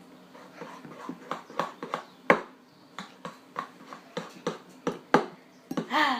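Thick, sticky slime of glue and laundry detergent being stirred in a container, giving irregular wet clicks and smacks, two or three a second, with one sharper smack a couple of seconds in. A short pitched sound, perhaps a voice, comes right at the end.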